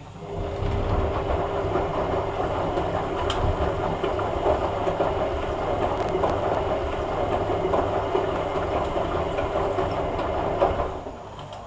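Hoover A3786 Logic Deluxe washing machine's motor turning the drum during a rinse, the laundry tumbling and sloshing in water with a steady hum. It starts suddenly and stops suddenly after about eleven seconds.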